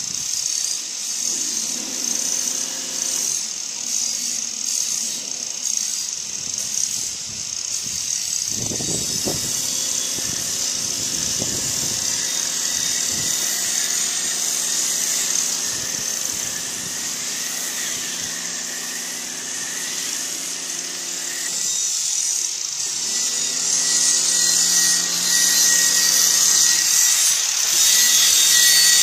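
Pressure washer spraying foam onto a car: a steady hiss of spray with the pump motor humming underneath. Near the end, a louder angle grinder grinds the edge of a steel machete blade.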